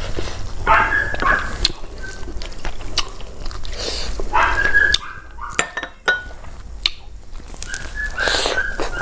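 Fingers mixing rice on a stainless steel plate: wet squelching, with clicks and taps of fingers against the metal. Curry is poured over the rice from a glass bowl around the middle, and a mouthful is taken near the end.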